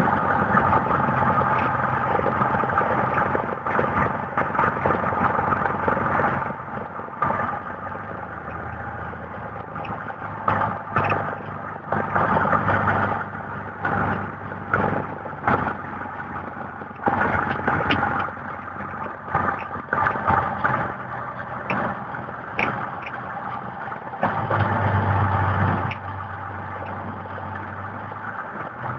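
Car engine running while the car is driven across rough grass, heard from inside the cabin, with many irregular knocks and rattles as the car goes over bumps. The low engine hum grows louder for a second or two near the end.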